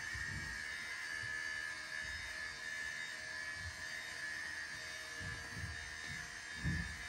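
A steady hum with a high whine, and a few soft low thuds, the loudest near the end.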